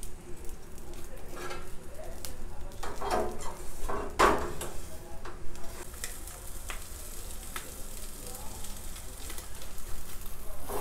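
Two whole sea bream in a wire fish basket sizzling on a gas grill over low heat, with a steady hiss and small crackles and pops. A couple of louder brief sounds stand out about three to four seconds in.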